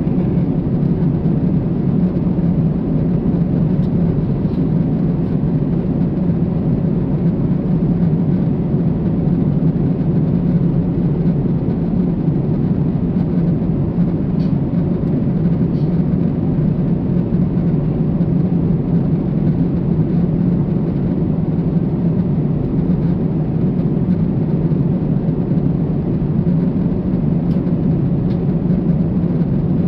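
Steady cabin noise of a Boeing 747-8 airliner in flight: a constant low hum from the engines with the rush of air along the fuselage, unchanging throughout, with a few faint ticks.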